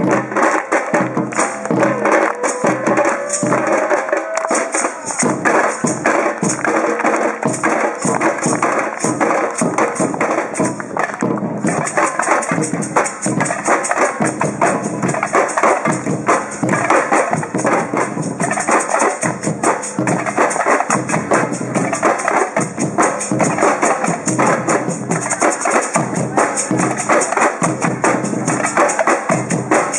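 Batucada percussion ensemble playing a dense, driving Brazilian samba rhythm on surdo bass drums, snare drums and other drums, without a break.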